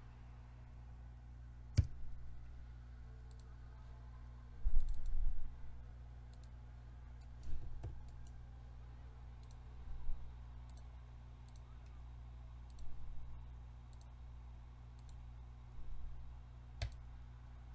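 Computer mouse clicks, a few sharp single clicks spread out over the stretch, with a short low rumble about five seconds in, over a steady low hum.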